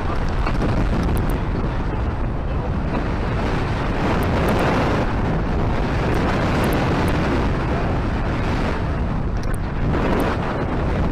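Wind buffeting the microphone in a steady loud rush that swells and eases, over the low running noise of the moving tour boat.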